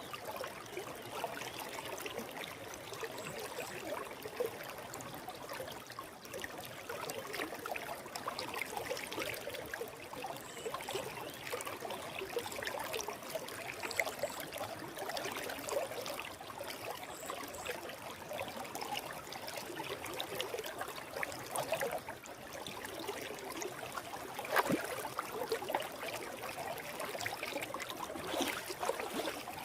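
Forest river flowing: a steady rush of water with irregular small splashes and gurgles.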